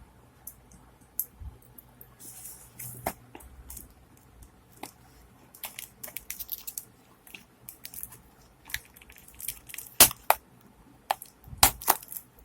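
Shipping package being opened by hand: scattered rustles and short clicks and knocks of packaging being handled, with the sharpest knocks about ten seconds in.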